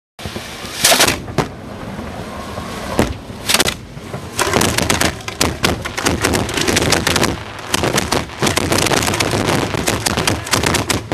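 Fireworks display: a few separate loud bangs, then from about four and a half seconds in a dense, rapid string of bangs and crackles.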